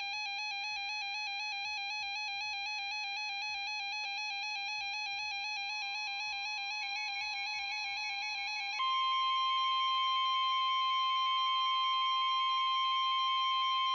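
Weather-radio alert tones announcing a tornado warning. First a warbling alarm that flips rapidly between pitches, then, about nine seconds in, a louder steady single tone near 1 kHz: the NOAA Weather Radio warning alarm tone.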